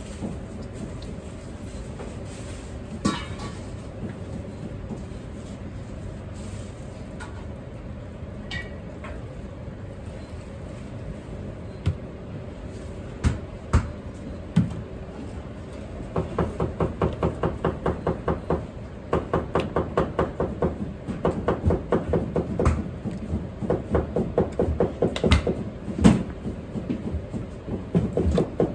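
Fast, steady knife chopping on a cutting board, about five strokes a second, starting about halfway through, over a steady low hum; a few single knocks come before it.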